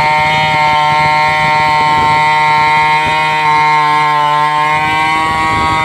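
Stihl two-stroke chainsaw running at steady high revs, its pitch held level as it cuts through a large log.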